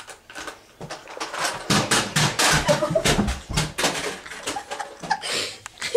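Plastic toy bus clattering and bouncing down carpeted stairs: a quick run of knocks that builds about a second and a half in and lasts around three seconds.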